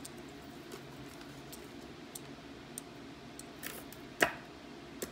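Faint ticks of a metal chain necklace being handled in the fingers, with one sharp click about four seconds in.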